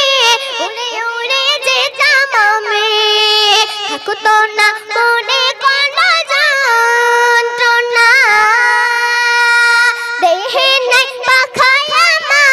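A boy singing a Bengali Islamic gojol unaccompanied into a microphone, drawing out long wavering notes and melodic turns between the lines of the verse.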